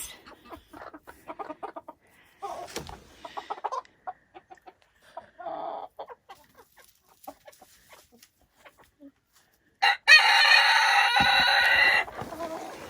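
Silkie chickens clucking now and then, then a silkie rooster crowing loudly for about two seconds near the end.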